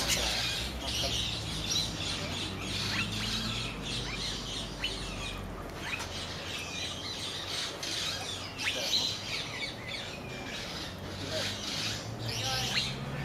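Several birds calling: chirps, short rising whistles and squawks, repeated throughout over a steady low hum.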